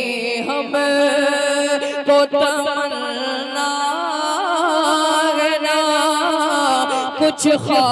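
Male voice singing an Urdu naat, drawing out a long melismatic line with wavering ornaments on held notes.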